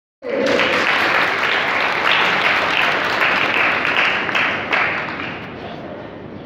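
A large audience of schoolchildren applauding, the clapping dying away about five seconds in.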